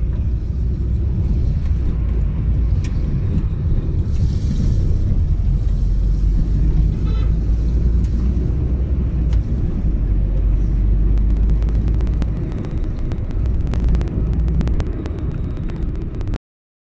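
Car driving, heard from inside the cabin: a steady low rumble of road and engine noise. A scatter of small clicks comes in over the last few seconds, and the sound cuts off suddenly near the end.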